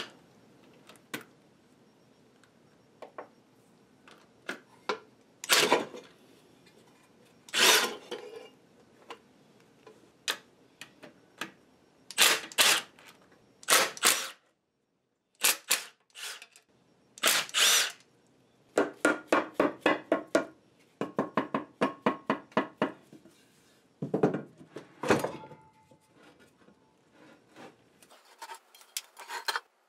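Milwaukee Fuel cordless impact tool run in short bursts, hammering bolts loose from the cast-iron body of an Atlas horizontal milling machine during its disassembly. After the middle comes a run of quick repeated clicks, and near the end a few light metal clunks as parts are handled.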